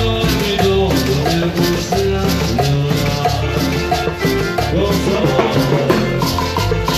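Latin dance music played by a live band: pitched melody and bass lines over percussion keeping a steady, even beat.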